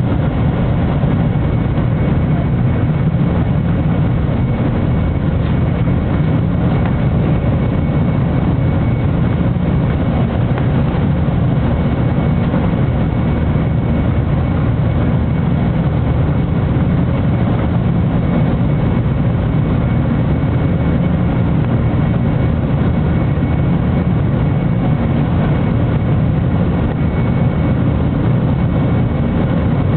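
Boeing 747 jet engines at climb power heard from inside the cabin: a steady low rumble with rushing air, unchanging throughout, during the climb-out just after takeoff.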